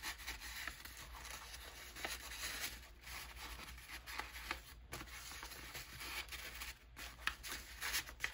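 Faint, irregular rustling and light scraping of paper as a folded book-page strip is handled and slid into a paper pocket on a junk-journal page, with a few sharper rustles near the end.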